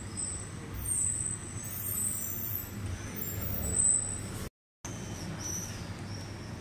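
Street traffic: a steady low rumble of passing motor vehicles with faint high squeaks over it, loudest a little before the middle, cutting out completely for a moment just after the middle.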